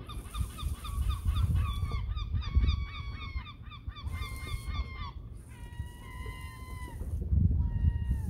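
A gull calling: a quick run of short, yelping notes, then a few longer, drawn-out calls that droop in pitch at their ends, over a low rumble.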